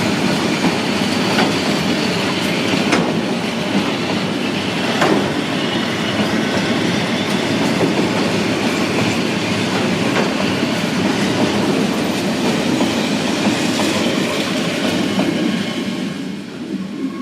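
Metre-gauge train running on the track: a steady rolling rumble, with the wheels clicking over rail joints now and then. The noise drops away near the end.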